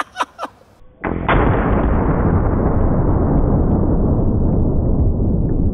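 The shot of a 600 Nitro Express double rifle hitting a gel torso, heard slowed down: a few sharp clicks near the start, then from about a second in a long, deep, muffled boom that carries on and fades only slowly.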